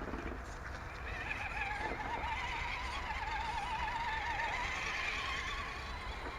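Electric motor of a scale RC crawler whining as it drives, a thin high tone that wavers quickly up and down in pitch, starting about a second in and fading near the end.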